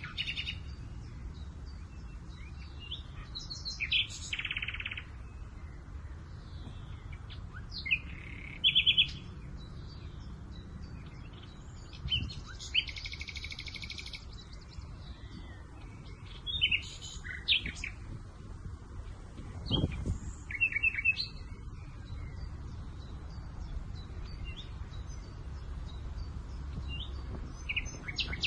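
Several songbirds chirping and trilling in short, separate phrases of differing kinds, scattered through, over a steady low wind rumble.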